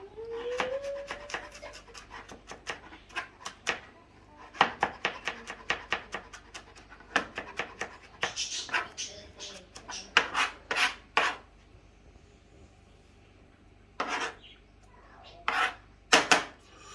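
Kitchen knife chopping spring onion on a cutting board: quick runs of strokes, about four or five a second, broken by short pauses, then a few single strokes near the end.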